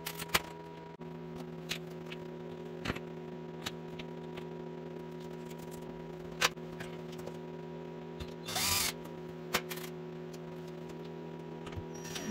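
Scattered clicks and knocks of PVC slatwall panels being handled and fitted against a wall, with one short rasping burst about eight and a half seconds in, over a steady hum.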